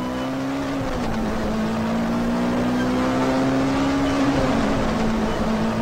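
Car engine accelerating hard. Its note climbs steadily and drops sharply twice as it shifts up through the gears.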